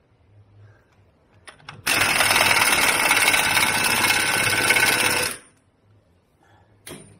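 Impact wrench hammering on the central drive-shaft bolt of a wheel hub in one steady run of about three and a half seconds, starting about two seconds in. A few short clicks come just before it, and another comes near the end.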